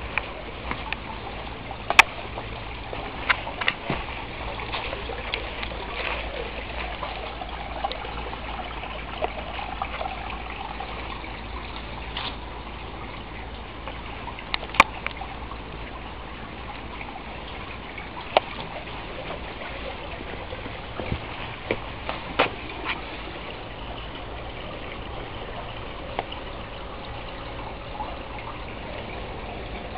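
A steady hiss, with scattered sharp clicks and knocks; the loudest come about two seconds in and again near the middle.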